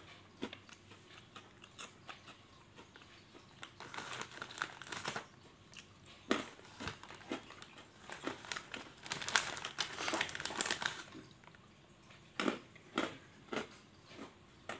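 Irregular small clicks and crackly, crinkling rustles, thickest about four seconds in and again from about nine to eleven seconds.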